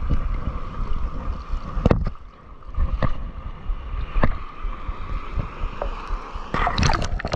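Wind rumbling on the camera's microphone over shallow surf, with sea water sloshing and splashing and a few sharp knocks. A louder burst of splashing comes near the end.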